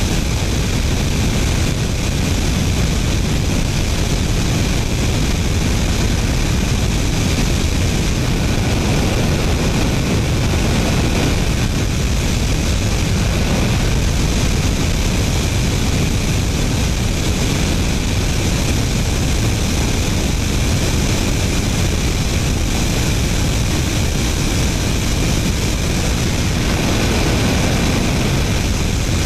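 Su-25 attack jet in flight: a steady, loud rush of jet engine noise and airflow, picked up by a camera mounted under the wing.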